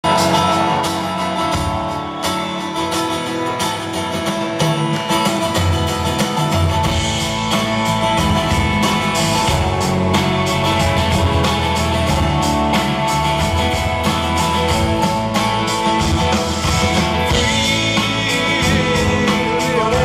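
A live rock band playing amplified through a concert PA, with strummed acoustic guitar and electric guitars over bass, heard from the audience.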